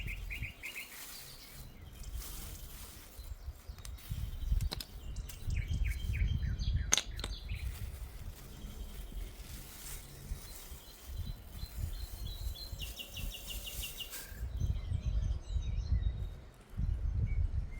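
Small birds chirping in quick runs of short notes, over a low rumble that comes and goes, with two sharp clicks about five and seven seconds in.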